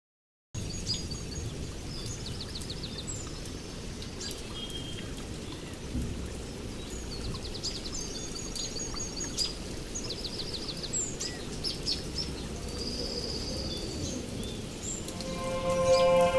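Birdsong, with repeated chirps and short rapid trills, over a steady rushing rain-like noise, played as a soundscape. Near the end a held musical chord fades in.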